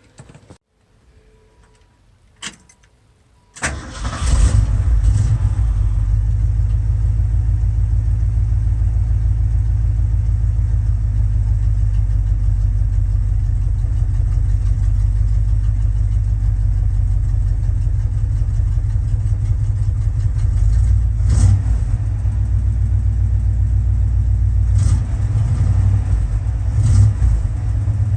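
1973 Ford F100 pickup's engine starting with its neutral safety switch jumpered out, catching quickly about three and a half seconds in after a couple of clicks, then idling steadily.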